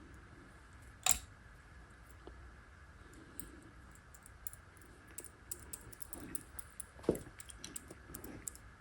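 Small clicks and taps of carburetor parts and tools being handled while the float needle is taken out. One sharp click comes about a second in, then a run of light ticks with another sharp click near the end.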